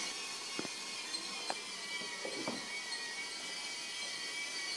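Small electric motor of a toy Christmas train whining steadily as the train runs around its track, with a few light knocks along the way.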